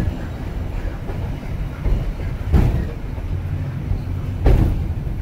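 Ikoma Cable Line funicular car running downhill on its rails, heard from inside the car: a steady low rumble with two sharp knocks about two seconds apart.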